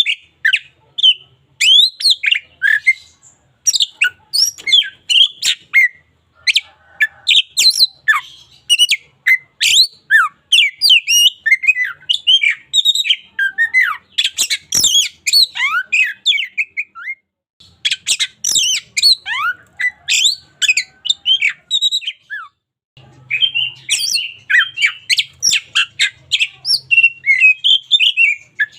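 Oriental magpie-robin (kacer) singing a fast, varied song of sweeping whistles and sharp rasping notes, broken by two short pauses in the latter half.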